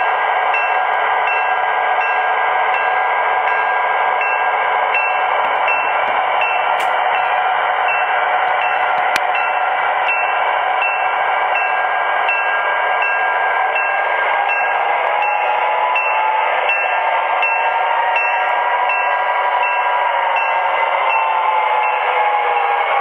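Diesel sounds from the onboard speakers of several MTH model EMD GP9 locomotives working hard under a heavy train: a steady electronic prime-mover rumble with engine tones that slowly slide in pitch. Under it runs a regular ticking about twice a second.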